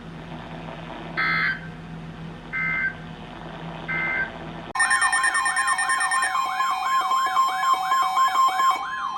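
Three short bursts of Emergency Alert System digital data tones, about a second and a half apart, the end-of-message signal of a severe thunderstorm warning. About halfway through, a loud warbling, siren-like alert tone over a steady tone starts up, the alert that heralds the next warning.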